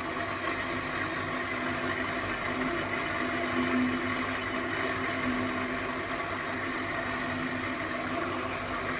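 12-inch domestic flour mill (atta chakki), belt-driven by a 2 HP single-phase electric motor, running steadily while grinding wheat into fine flour, with an even mechanical hum.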